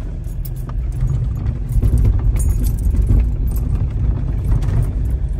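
Mazda BT-50 4x4 ute heard from inside the cabin as it drives over a rough, muddy track in two-wheel drive: a steady low rumble of engine and tyres with constant rattling and knocks as the body bumps about, growing louder about two seconds in.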